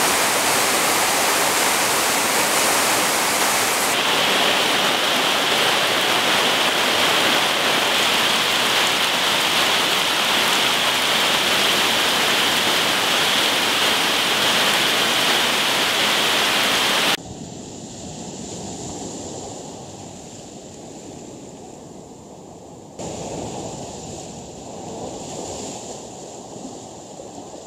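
Heavy tropical rain pouring on rainforest foliage, a loud steady hiss that gains a higher edge about four seconds in. About seventeen seconds in it cuts off abruptly to a much quieter bed of rushing river water with a faint steady high tone.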